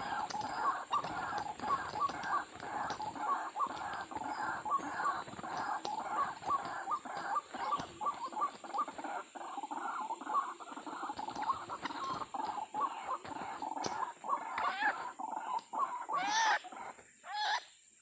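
White-breasted waterhen calls: a fast run of short, repeated croaking notes, about three a second. Near the end come a few louder, longer calls that bend in pitch.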